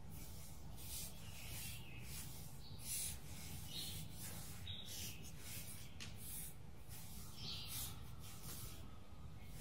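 Plastic checkers pieces sliding and scraping across a game board as moves are made: a series of short, soft rubbing scrapes, over a faint steady low hum.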